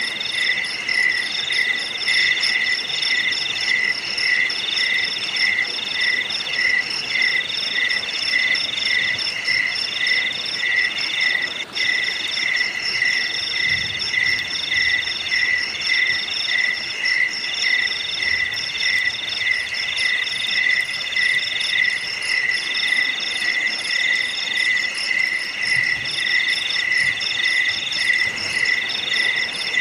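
A chorus of insects chirping steadily, several kinds at once: a pulsing chirp repeating about two or three times a second under higher, longer trills. The chorus briefly drops out about twelve seconds in.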